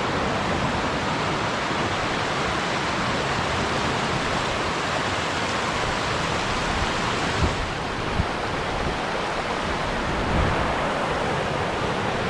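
Fast-moving water rushing steadily, a continuous even hiss. A few soft low thumps come in the second half.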